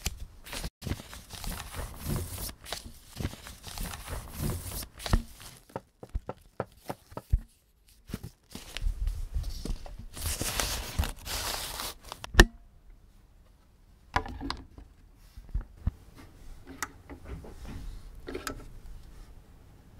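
Paper inner sleeve rustling and sliding as a vinyl record is drawn out of it and handled. After about twelve seconds a sharp click, then fainter clicks and taps of the record and turntable being handled.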